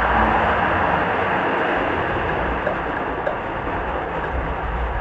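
Model train running along the layout track with a steady rumbling hiss of wheels and motor, as the locomotive is eased toward a stop.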